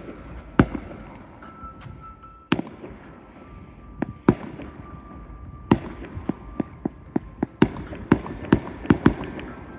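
Fireworks display: aerial shells bursting with sharp bangs, a few spaced a second or two apart at first, then coming quicker, several a second, in the second half.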